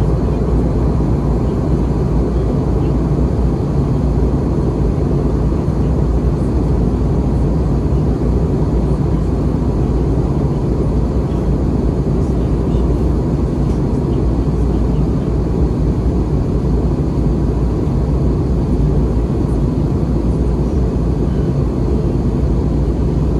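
Steady in-cabin noise of an Airbus A320-232 in flight: its IAE V2500 turbofan engines and the rush of air over the fuselage, heard from a seat over the wing. It is an even, low rumble with a faint steady hum, unchanging throughout.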